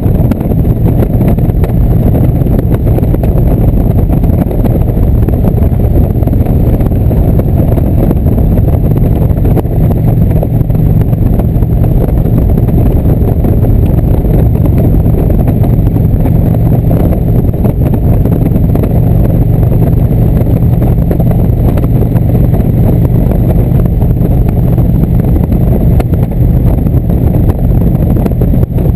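Indian cruiser motorcycle's V-twin engine running steadily at cruising speed, mixed with wind rushing over the camera microphone.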